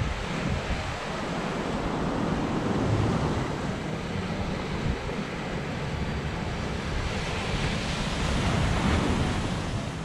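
Surf breaking and washing over a rocky, sandy shore, with wind buffeting the microphone; the waves swell louder about eight seconds in.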